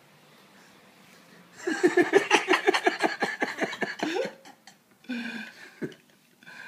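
A person bursting into rapid, pulsing laughter for about two and a half seconds, starting about a second and a half in, followed by a short vocal sound about five seconds in.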